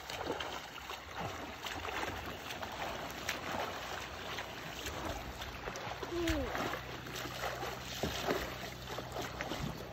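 Water splashing and lapping around a small boat, with scattered small knocks and clicks; a brief falling whine about six seconds in.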